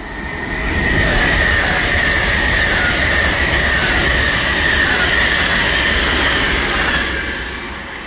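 Class 390 Pendolino electric train passing through at speed without stopping: a loud rush of wheels and air on the rails with a deep rumble and a high tone that drifts slightly down in pitch, building over the first second and fading away near the end.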